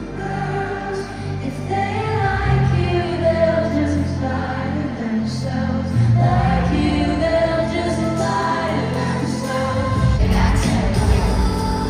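Music: a pop song with a woman singing over a band, with several voices heard together. The bass gets heavier about ten seconds in.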